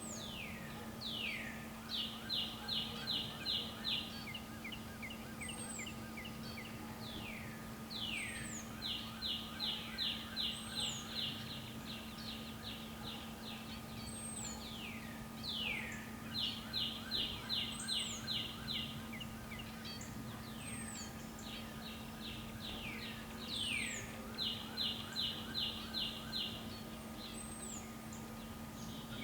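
A songbird singing the same short phrase four times, about seven seconds apart: a few downward-sliding whistles, then a quick run of seven or eight short notes. A steady low hum runs underneath.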